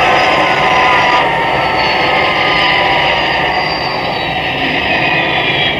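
Jet engines of a large transport aircraft whining as it taxis, several high tones sliding slowly down in pitch over a steady rumble.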